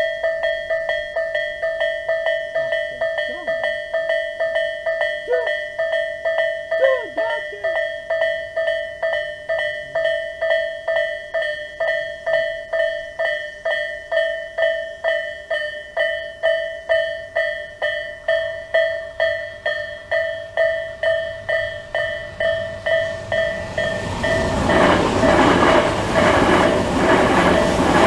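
Japanese level-crossing warning bell, the Tobu 'sound A' electronic bell, ringing steadily about twice a second. From about 24 s in, the rolling noise of a limited express train passing over the crossing rises over the bell and becomes the loudest sound.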